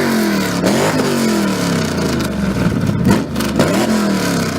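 A performance car's engine revved twice, its pitch rising sharply and falling back slowly after each blip of the throttle.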